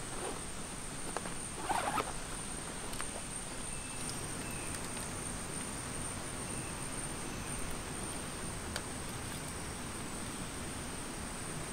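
A zipper is pulled along a fabric fishing-rod bag in one short rasp about two seconds in. Under it runs a steady high-pitched insect drone, with a few faint chirps and light handling clicks.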